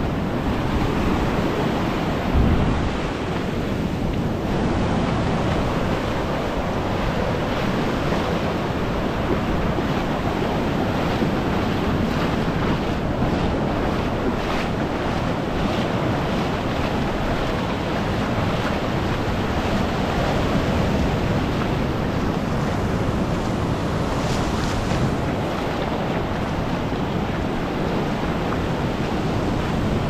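Bay of Bengal surf washing steadily onto a sand beach, with wind buffeting the microphone.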